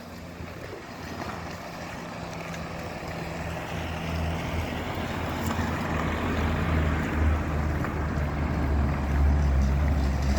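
Low, steady motor-vehicle engine hum under wind noise, growing steadily louder.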